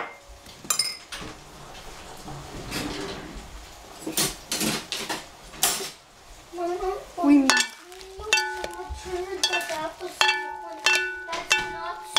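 Salad servers knocking and scraping against a ceramic bowl as a dressed romaine salad is tossed. Scattered scrapes and clicks give way in the second half to regular knocks, about two a second, each ringing briefly in the bowl.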